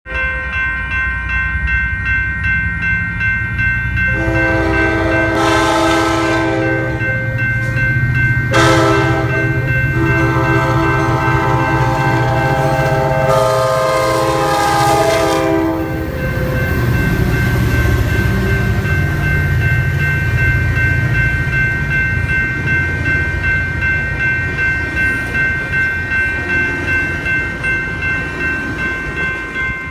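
A grade-crossing bell rings throughout while a double-headed Coaster commuter train sounds its air horn in four blasts, the first long, over about twelve seconds. The train's two diesel locomotives then pass running under power, followed by the rolling of its passenger cars.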